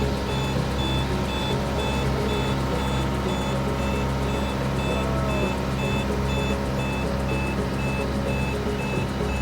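A rice-harvesting machine's engine runs steadily under a repeating electronic warning beeper, about two short high beeps a second.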